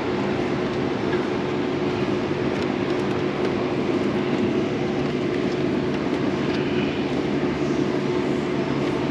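Steady machine drone with a constant low hum running evenly throughout, the background noise of equipment running in a workshop.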